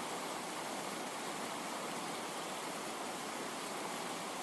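Steady, even rushing noise of water, with no rise and fall of breaking waves.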